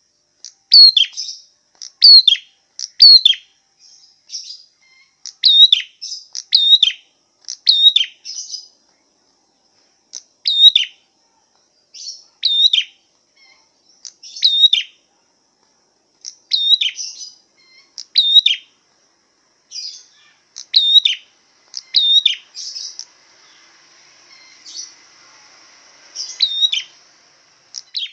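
A songbird giving short, sharp calls over and over, roughly one a second, each note dropping in pitch.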